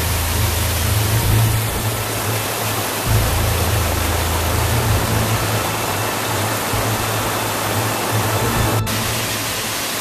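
Waterfall water rushing and cascading over rock in a loud, steady rush, with wind buffeting the microphone in low rumbles that come and go.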